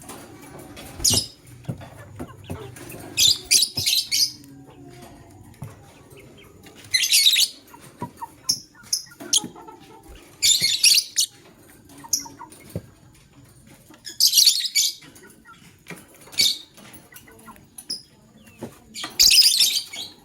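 Lovebirds giving loud bursts of rapid, shrill chirps, about six times, with faint clicks and rustling between the bursts.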